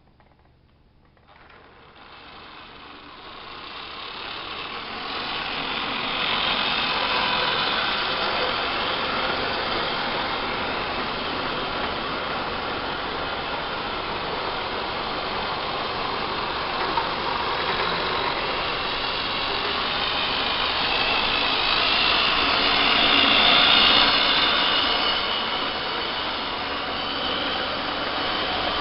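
Lima 1:45-scale model diesel locomotives and a long train of wagons running on the track, a steady whir of the electric motors with the rolling and clatter of the wheels. It comes in about a second and a half in and grows louder over the next few seconds, loudest about three-quarters of the way through.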